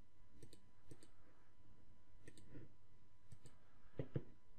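Computer mouse clicking: about five quick pairs of clicks spread out, the last pair near the end the loudest.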